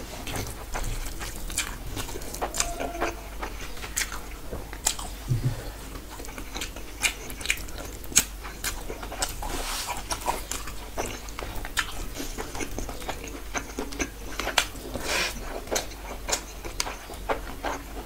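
A person chewing mouthfuls of rice and curry eaten by hand, with many irregular wet mouth clicks and smacks.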